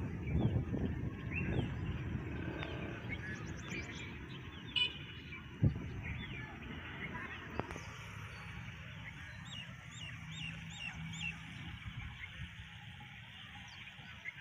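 Birds chirping in short calls, one giving a quick run of five or six chirps past the middle, over a low rumble that fades away. Two sharp knocks sound about five and six seconds in.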